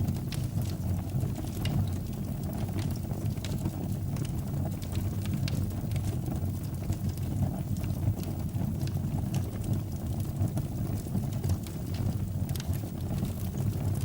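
Wood fire burning in a fireplace: a steady low rumble of flame with scattered sharp crackles and pops.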